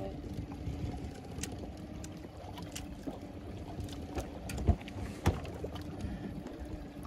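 Wind and water noise around a small open boat at sea, under a steady low hum. About two-thirds of the way in come two sharp knocks, about half a second apart, the loudest sounds here.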